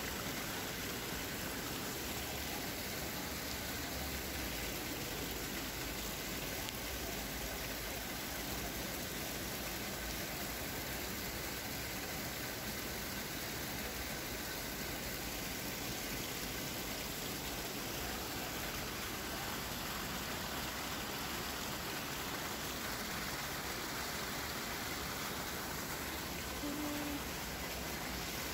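Small artificial waterfall splashing steadily over rocks into a shallow pool.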